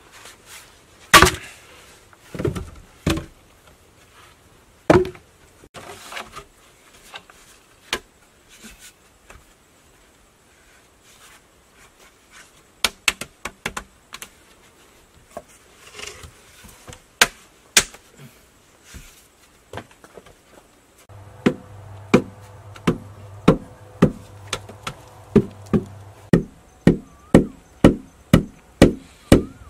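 Bamboo poles knocking as they are dropped and handled, a few scattered sharp knocks, then, about two-thirds of the way in, a steady run of sharp knocks on bamboo, about two a second.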